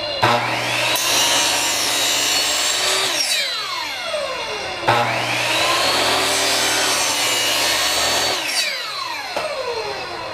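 A power saw cutting 1.5-inch PVC pipe, run twice for about three seconds each. Each time it whines up to speed, buzzes through the pipe, and its blade winds down with a falling whine when released.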